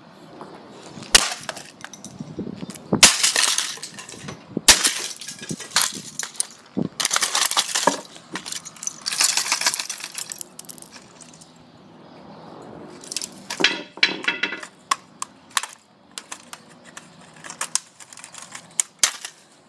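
A plastic Sony clock radio being stamped on and broken apart under a sneaker on asphalt: a series of sharp stamps, loudest in the first five seconds, with cracking and crunching of the plastic case and small pieces clattering between them.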